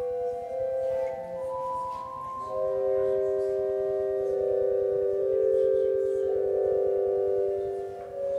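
Organ music: slow, held chords in smooth, steady tones. The notes change a few times in the first couple of seconds, then one chord is held for several seconds.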